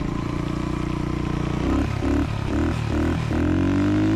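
Honda ATC125M single-cylinder four-stroke engine in a 1974 Honda XL100 dirt bike, running under way. Its note rises in several short bursts of throttle, then climbs steadily near the end.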